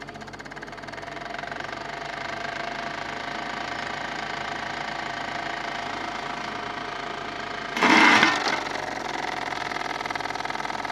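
Electric fan heater's small fan motor spinning up and running with a steady whine, damaged from being dropped and not running well. About eight seconds in there is a loud, harsh burst of noise lasting under a second.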